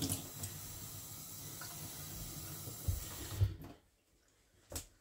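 Kitchen tap running into a stainless-steel sink as the cleaver is rinsed, with a couple of dull knocks. The water stops suddenly about four seconds in, and a single sharp click follows.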